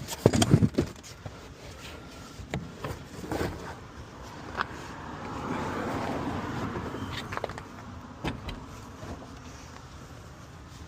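A quick run of loud metallic knocks in the first second, then scattered clicks and clanks from tire-change work, with a car passing by around the middle, rising and fading over a few seconds.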